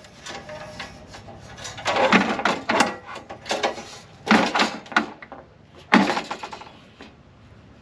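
Knocks and scraping of a tailgate-table mounting bracket being slid over on the tailgate, in several short bouts.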